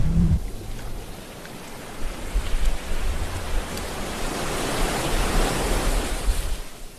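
Sea waves surging: one wave hits right at the start, a lull follows, then another swells over several seconds with a low rumble before fading out near the end.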